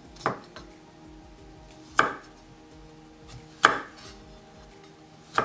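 Kitchen knife cutting broccoli into florets on a wooden cutting board: four sharp knocks of the blade meeting the board, evenly spaced a little under two seconds apart.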